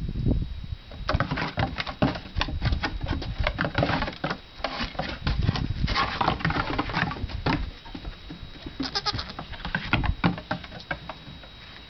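Pygmy goat kids bleating, among a dense run of quick clicks and knocks that thins out after about seven seconds.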